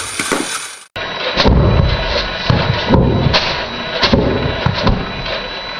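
Hairspray-fuelled potato Gatling gun firing a string of shots, roughly two a second, as its spinning barrels pass the spark-plug ignition one after another. The sound cuts out briefly about a second in, before the run of shots.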